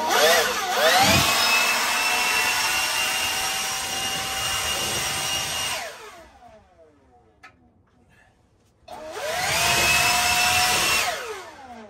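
Handheld leaf blower run in two blasts: it whines up to speed, runs steadily for about six seconds and winds down, then after a pause of a couple of seconds runs again for about two seconds and winds down.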